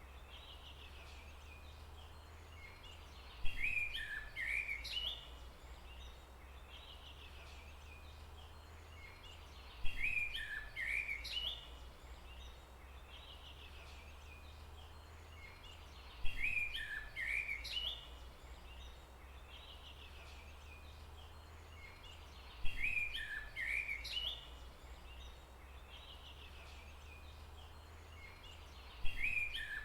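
A songbird singing a short, chirping phrase of about two seconds, the same phrase recurring about every six and a half seconds, five times. A steady low rumble runs underneath.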